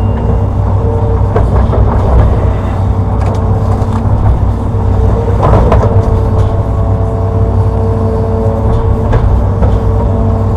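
Hitachi Zaxis 210-5G excavator's diesel engine running steadily under working load, with a constant hydraulic whine over the low engine rumble and occasional knocks as it digs.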